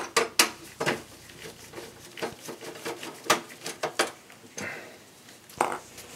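Irregular sharp clicks and light knocks of a Phillips screwdriver and hands working on the metal chassis of a desktop PC, undoing the screws that hold the hard drive in place.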